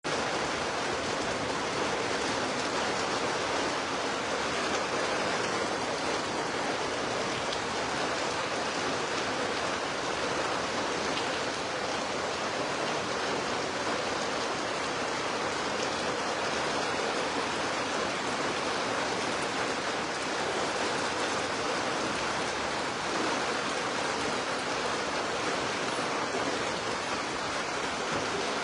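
Heavy rain pouring down, a dense, steady hiss with no letup.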